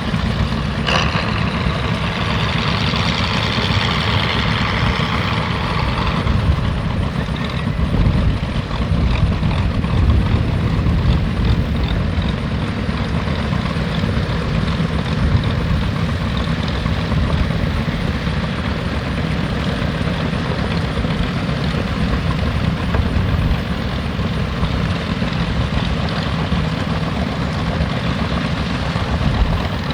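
A heavy engine running steadily with a low, rough rumble, with a loud hiss for the first several seconds.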